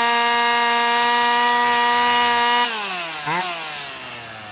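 Old Craftsman two-stroke chainsaw held at wide-open throttle, running a steady high pitch at crazy high revs of about 14,000–15,000 RPM, its carburetor adapter leak fixed. About two and a half seconds in the throttle is released and the revs fall away, with one short blip, toward idle.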